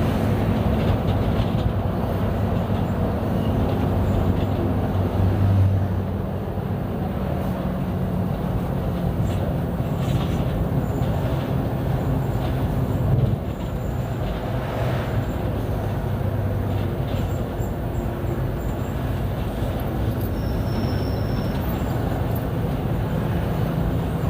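Mercedes-Benz O-500U city bus running under way: a steady diesel engine drone with rumble and rattle. The engine note shifts about six seconds in, and the sound drops a step in level around thirteen seconds.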